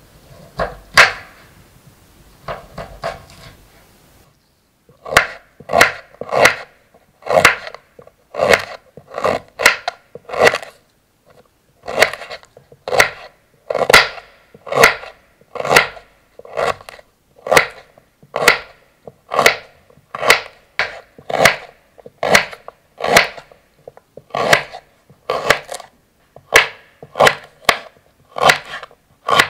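Kitchen knife slicing through fresh ginger root and striking a wooden cutting board, a steady run of sharp cuts at about one a second. There are a few softer knocks in the first seconds before the regular slicing starts.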